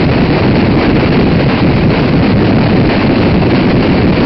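Steady, loud wind rushing over the microphone, mixed with the road noise of a car driving at highway speed.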